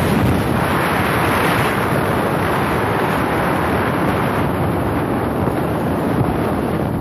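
Wind rushing over a phone microphone from riding speed, mixed with a snowboard hissing as it slides and carves over groomed corduroy snow. Loud and steady throughout.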